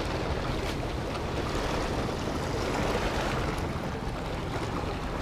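Steady wash of sea water lapping against shoreline rocks, with wind buffeting the microphone.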